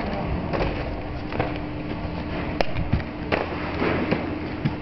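Skis and ski boots shifting on packed snow: scraping and crunching with a few sharp clicks over a steady hiss.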